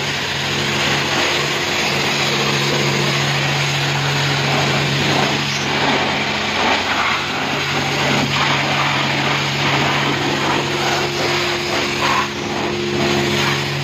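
High-pressure rinse water from a self-service car wash lance spraying onto a car's bodywork, a steady hiss over the steady hum of the wash bay's pump.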